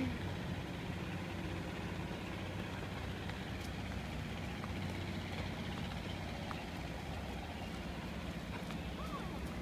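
An engine running steadily, a low unbroken hum with no change in pitch.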